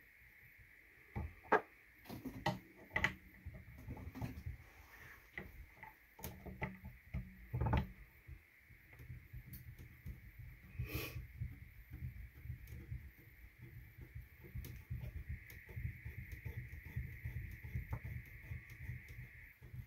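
Small clicks and knocks of 3D-printed PETG rest parts being handled, as friction knobs are fitted and threaded into a shooting rest top. The knocks are irregular, with a few louder ones in the first eight seconds.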